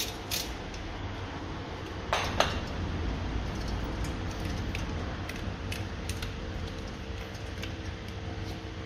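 Light metallic clicks and clinks of hand tools working on the brake caliper bolts, with two louder metal knocks about two seconds in, over a steady low hum.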